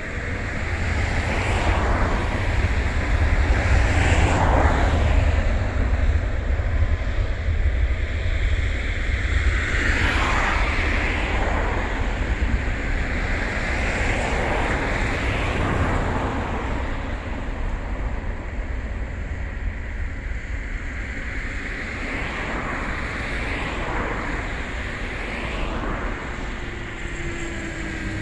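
Jet airliner's engines rumbling from across the airfield as it rolls down the runway, a deep steady roar that rises about two seconds in. A hissing layer swells and fades every few seconds over the top.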